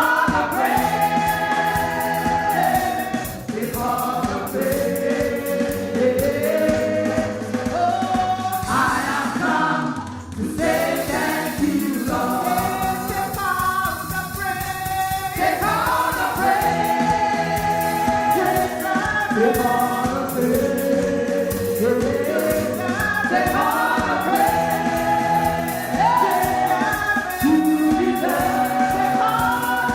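Gospel choir singing a worship song over instrumental accompaniment with a steady beat and bass line.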